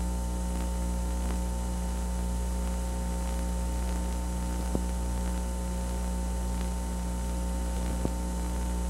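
Steady electrical mains hum with a buzz above it, carried on the soundtrack of an old analogue tape transfer where the programme audio has dropped out. Two faint clicks come about halfway through and near the end.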